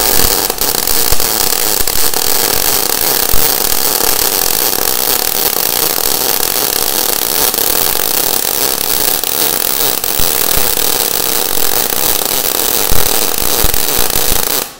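Weldinger MEW 201 SYN ECO welder MIG welding with solid wire and shielding gas, the settings turned up a little. The arc sizzles steadily while laying a bead on steel plate, then cuts off abruptly near the end.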